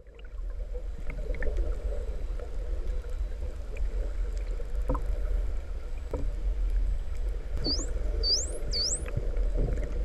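Bottlenose dolphins whistling underwater: three quick rising whistles about three quarters of the way through, over a steady low rumble of water noise with a few scattered clicks.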